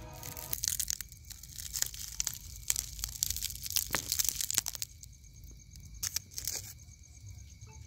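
Roasted shell of a charcoal-barbecued giant river prawn crackling and tearing as hands pull it apart. It is a quick run of small cracks and crunches, dense at first and thinning out after about five seconds.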